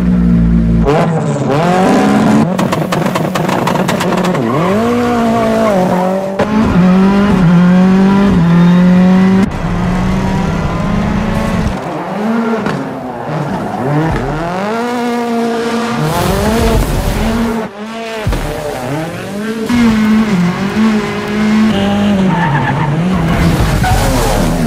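Rally car engine revving hard and shifting as the car drifts, its pitch climbing and dropping again and again, with tyres skidding.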